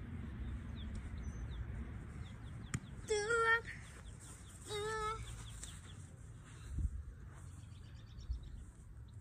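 Two short wavering pitched calls about a second and a half apart, over a steady low rumble of wind on the microphone, with a single sharp knock just before the first call.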